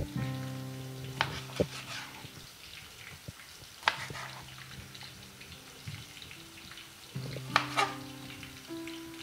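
Kitchen knife slicing through tomatoes and tapping a cutting board in a few sharp, scattered knocks. Steady background music and a faint frying sizzle run underneath.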